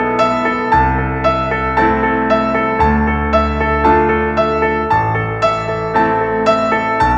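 Background music: a piano-like keyboard plays a steady run of notes, about two a second, over low bass notes that change every two seconds or so.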